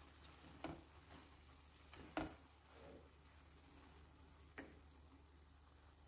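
A wooden spatula stirring cooked bulgur pilaf in a non-stick pot: soft scraping through the grains, with three knocks of the spatula against the pot, the loudest about two seconds in.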